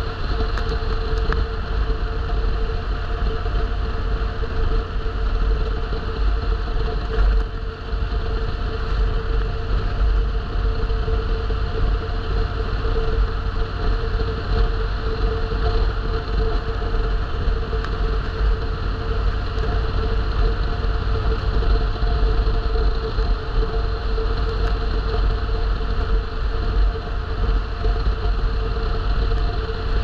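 A vehicle's engine running steadily, with a constant low rumble and a steady hum, as on the move during a ride.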